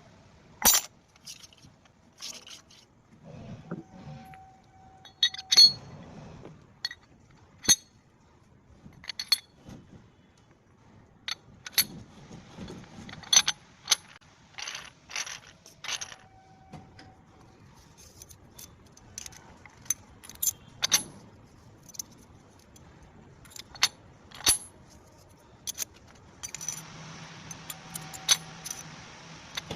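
Steel tools and gear parts clinking and knocking in irregular sharp strikes while a bevel gear is fitted. A brief ringing tone sounds twice, and a low steady hum starts near the end.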